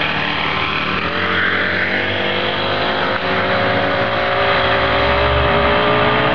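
A small engine revs up, its pitch rising over about a second, then runs steadily at high speed.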